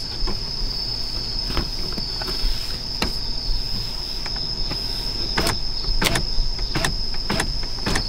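Car's electric power window motor slowly raising the side glass, with scattered sharp clicks as the glass closes up against a homemade plastic window cover. A steady high chirring of crickets sounds behind it.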